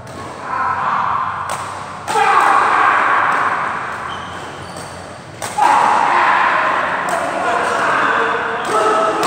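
Badminton rackets striking a shuttlecock: a few sharp smacks spread through a rally, with players' voices echoing in a large hall.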